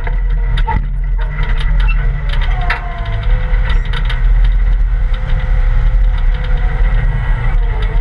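Caterpillar 226 skid steer loader's diesel engine running under load as the bucket pushes dirt, with a steady whine over the low rumble and frequent rattling knocks from the machine.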